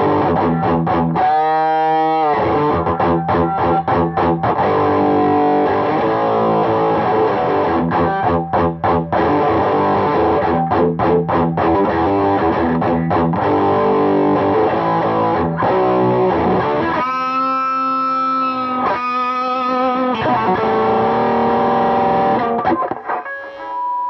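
Distorted electric guitar played through a Brown Sound in a Box overdrive pedal into a TPA3118 class-D amp module: fast chopped chord riffs broken by longer ringing chords at about two seconds in and again around seventeen seconds, dying away just before the end.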